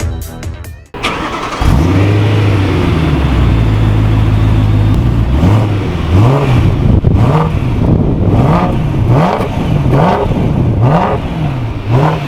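BMW E93 M3's 4.0-litre V8 catching and flaring up, then settling to a steady idle. From about halfway on it is blipped repeatedly, its pitch rising and falling about once a second.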